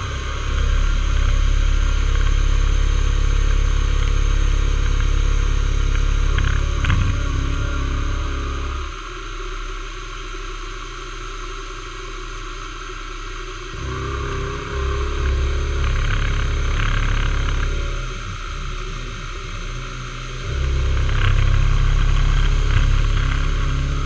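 Milling machine cutting an aluminium block with an end mill: the spindle motor runs steadily while the cutting noise swells and drops in stretches as the cutter feeds through the metal. It is louder for the first several seconds, eases off for a few seconds, and comes back twice, the last time loudest near the end.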